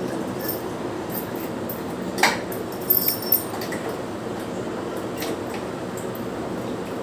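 Small glass-and-metal clinks as a jar is handled: a sharp click about two seconds in, then a quick cluster of three clinks around three seconds, over a steady low background noise.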